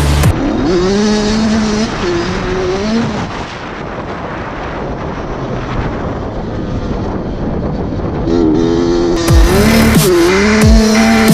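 Honda CR80R's small single-cylinder two-stroke engine revving as the dirt bike is ridden, its pitch rising and dipping with throttle and gear changes, easing off and quieter in the middle. Electronic music with a heavy beat cuts back in about nine seconds in.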